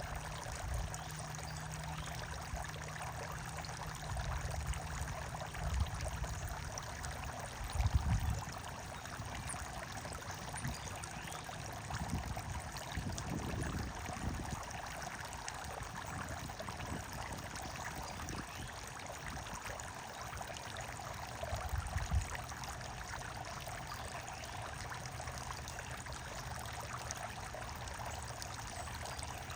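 Running water pouring and trickling steadily. A few low rumbles break in, the loudest about eight seconds in.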